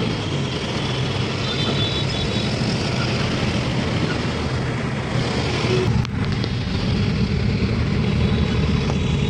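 City road traffic heard from inside a moving taxi: a steady low rumble of engines and tyre noise.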